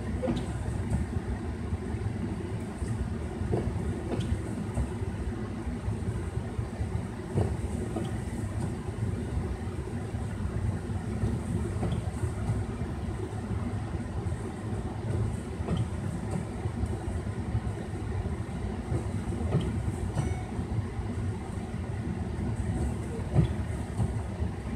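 Freight train rolling past a road crossing: a steady low rumble of the railcars with scattered clacks of the wheels, heard from inside a stopped car.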